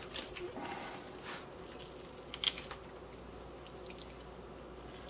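Faint wet handling sounds of raw chicken thighs being cut from the bone with a knife on a wooden cutting board, with a single brief click about two and a half seconds in.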